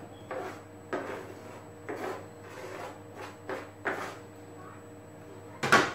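A kitchen knife cutting salad vegetables on a board: short scraping, chopping strokes at an uneven pace of about one a second, the loudest one near the end, over a faint steady hum.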